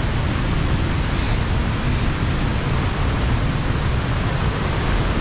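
Iguazu Falls' cascading water, a loud, steady rushing noise with a heavy low rumble.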